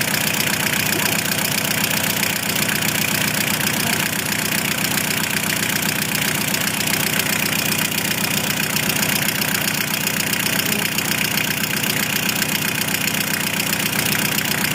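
Volkswagen van engine running steadily, with an even, fast pulse.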